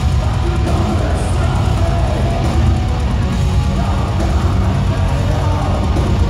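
Metal band playing live through a PA: distorted guitars, bass and drums in a loud, dense, unbroken wall of sound, heavy in the low end, heard from within the audience.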